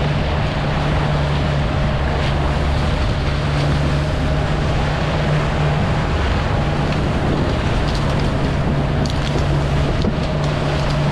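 Fishing boat's engine running steadily under way, a constant low hum, with wind and water rushing past the hull.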